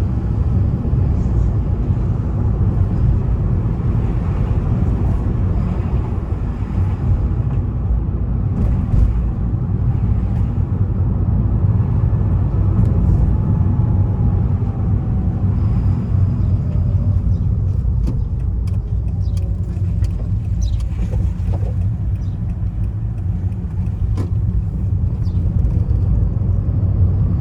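Third-generation (ZVW30) Toyota Prius on the move, a steady low rumble of road and running noise, with scattered short clicks and knocks in the latter part.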